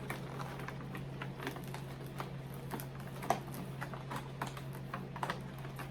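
Light, irregular clicks and taps of fingers picking and pulling at the packaging of a cardboard art-kit box while trying to open it by hand, over a steady low hum.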